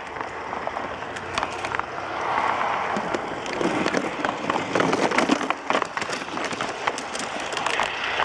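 G-scale garden railway wheels rolling along the track, with a steady rattling roll and many quick, irregular clicks as the wheels pass rail joints.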